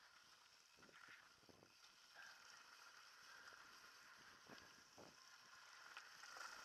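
Faint riding noise of a mountain bike descending a dirt trail: a steady hiss of tyres and rushing air, with a few knocks and rattles from the bike over bumps.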